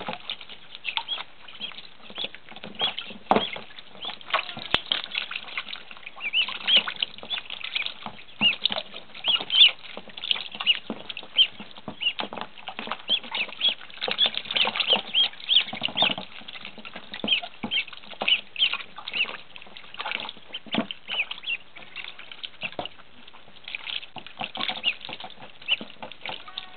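A brood of ducklings, which the owner takes for Rouens and Pekins, peeping without a break in short high cheeps, with light splashing and paddling in shallow water in a plastic tub.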